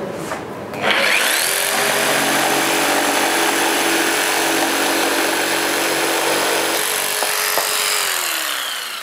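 Festool PS 300 jigsaw starting up about a second in and sawing steadily through a softwood joist, its motor spinning down near the end.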